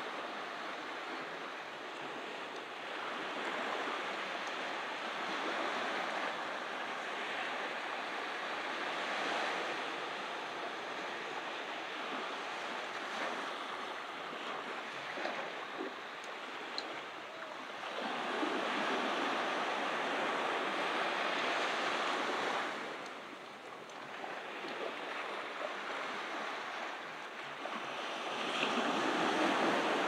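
Ocean surf breaking and washing up a beach, a steady rush that swells and falls back every few seconds, with a brief lull a little past two-thirds through.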